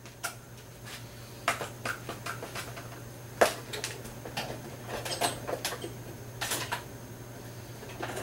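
Scattered metallic clinks and knocks of hand tools, sockets being swapped and tried on a bolt, with several sharper clacks among lighter clicks.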